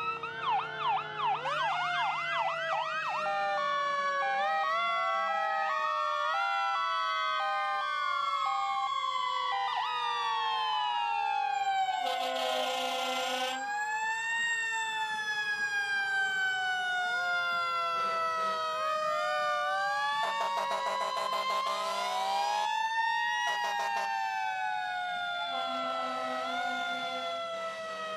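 Several emergency-vehicle sirens sounding together, their wails gliding up and down and overlapping, with quick yelps at the start. Long horn blasts sound about twelve seconds in, again around twenty seconds in, and near the end.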